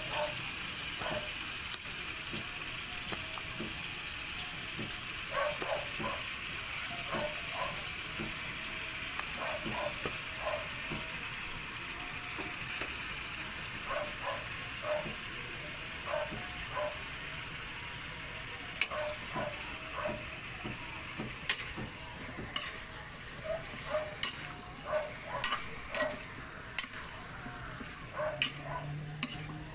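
Chicken wings sizzling in hot oil in a wok, a steady hiss. In the last third a spatula stirs the pieces, scraping and knocking against the wok in quick irregular clacks.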